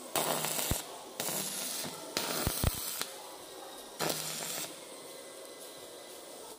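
Stick-welding arc hissing and crackling in several bursts as an electrode welds the base of a steel glass-railing spigot, with short breaks between bursts and a few sharp clicks.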